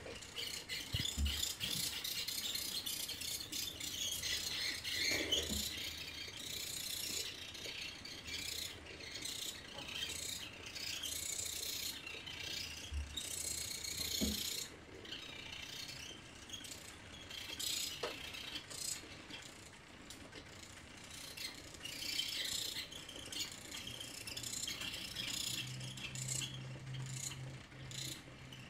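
Small geared DC motors of a Meccano line-following robot running, a whining rattle from the motors, gears and metal chassis that surges and drops unevenly as the robot drives and steers, with a few soft knocks.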